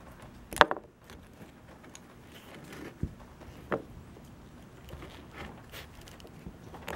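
Handling noise from needle-nose pliers and the plastic parts of an electrical plug end being fitted together: a few small clicks and rustles, with a sharp click about half a second in and another a little before four seconds.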